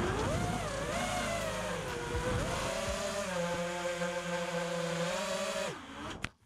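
FPV quadcopter's Racestar brushless motors and props whining, the pitch rising and falling with the throttle, then dropping and cutting off suddenly near the end.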